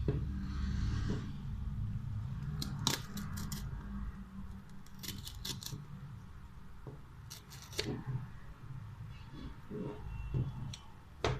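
Hands handling camera accessories and their packaging: scattered sharp plastic clicks and snaps, some in quick clusters, over a low handling rumble, with one sharp click near the end.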